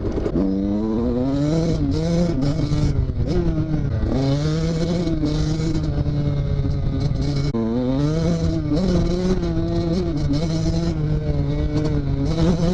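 KTM SX 85 two-stroke single-cylinder motocross engine running on the move, its pitch rising and falling several times with the throttle.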